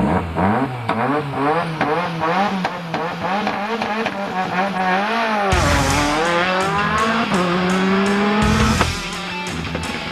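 Rally car engine revved in quick repeated blips, its pitch rising and falling about twice a second. After an edit, a car engine drops and then climbs steeply in pitch as it accelerates hard.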